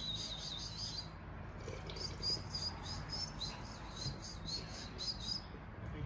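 A person whistling high, warbling notes at a pet bird to coax it to chirp: one warble at first, then a run of short notes for a few seconds.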